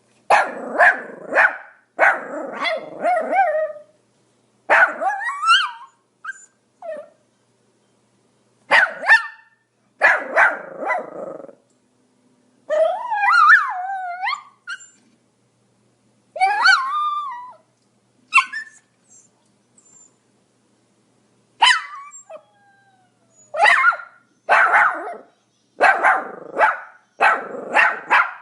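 Pomeranian barking in short bouts of sharp barks separated by silent pauses, with a couple of longer, wavering whining yelps in the middle. Near the end it settles into a steady run of barks, about one a second.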